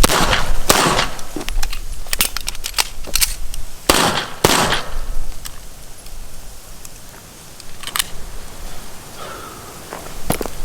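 Gunshots: a loud shot at the start, a quick string of lighter shots between about two and three and a half seconds in, two loud shots around four seconds in, then single shots near eight and ten seconds.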